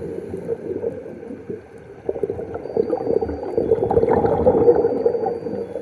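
Scuba diver's exhaled bubbles gurgling from the regulator, heard underwater. They fade to a lull about a second and a half in, then a fresh exhale bubbles up about two seconds in.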